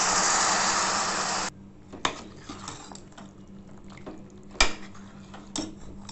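Tamarind juice poured into a hot pan of okra: a loud, steady rush of liquid that stops abruptly about a second and a half in. Then a spoon stirs the okra, with a few sharp clinks against the steel pan.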